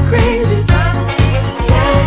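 Background music: an electro-swing song with a steady beat, a bass line and a melody line over it.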